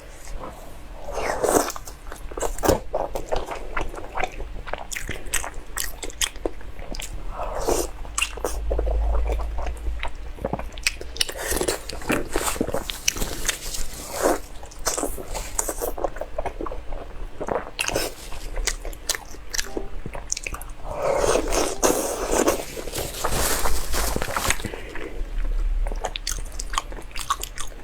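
A person eating seafood close to the microphone: repeated biting and chewing, with many sharp clicks and crunches.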